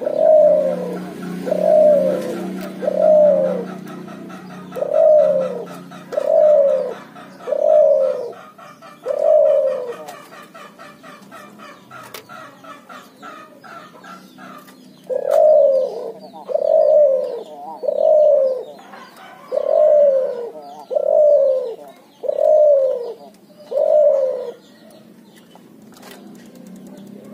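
Cuhu dove, a hybrid of ringed turtle dove (puter) and spotted dove (tekukur), cooing repeatedly: a run of seven loud coos about a second and a half apart, each dropping in pitch at the end, then a pause of about five seconds, then another run of seven. Faint chirping of small birds sits behind the coos.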